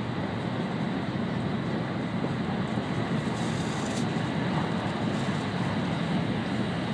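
Steady running noise inside the cabin of an N700-series Shinkansen travelling at high speed: an even low rumble with hiss, and a brief sharper hiss that cuts off about four seconds in.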